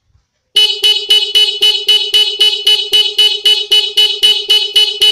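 Ordinary motorcycle horn sounding in a rapid stutter of even beeps, about four a second, starting about half a second in. The pulsing comes from a CR7 flasher unit wired in line with the horn, with no relay, which switches the horn's current on and off.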